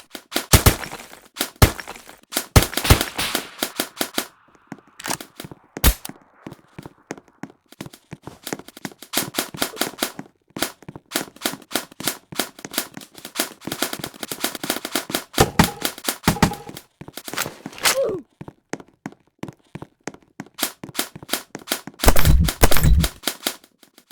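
Airsoft guns firing in rapid bursts of sharp cracks, with short pauses between strings of shots and a heavier, deeper burst near the end.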